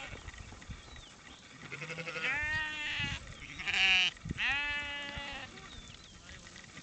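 Sheep in a grazing flock bleating: three or so calls in the middle, the loudest a short quavering one about four seconds in.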